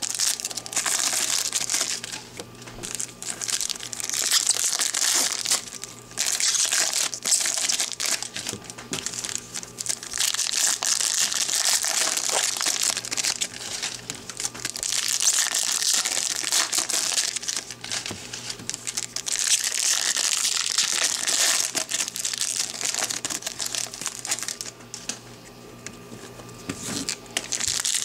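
Foil baseball card pack wrappers crinkling and rustling in repeated bursts as the packs are handled and opened, with short lulls between.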